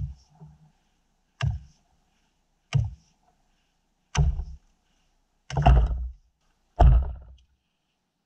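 Axe chopping into a frozen spruce log: six strikes about one every second and a half, the last two the loudest, each a sharp hit with a dull thud.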